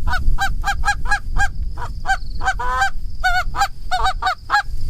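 Canada goose call blown in a fast run of short clucks and honks, about four a second, with one longer, drawn-out note a little past halfway. A low rumble sits underneath.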